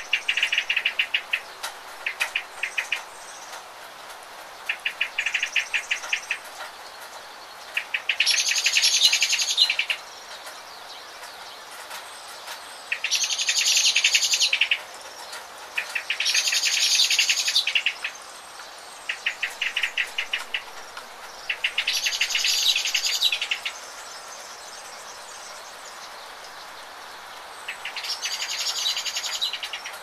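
Birds singing over a steady hiss of rain: short rapid trills, and five louder song phrases of about two seconds each, spaced a few seconds apart.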